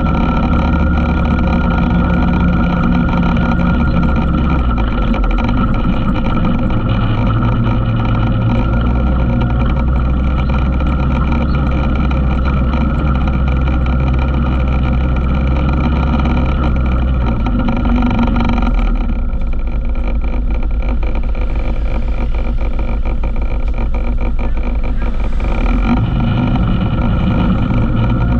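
ATV engine running steadily while riding the trail. The engine note changes a few seconds in, eases off about two-thirds of the way through, and comes back up near the end.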